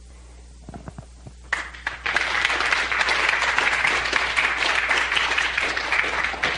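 An audience applauding: a few scattered claps, then the whole room breaks into steady clapping about a second and a half in.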